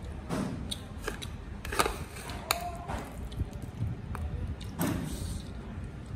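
Metal spoon knocking and scraping against ceramic dishes while eating, with several separate clinks. One clink, about two and a half seconds in, leaves a short ring.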